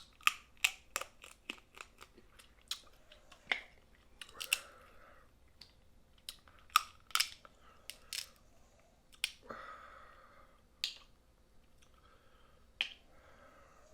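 Snow crab shell being cracked and eaten close to the microphone: irregular sharp cracks and clicks of shell, with chewing and a few short wet slurping noises.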